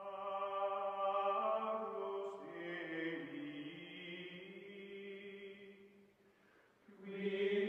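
Slow choral chanting music: voices holding long, steady notes that shift pitch every second or so. It fades low about six seconds in and swells again near the end.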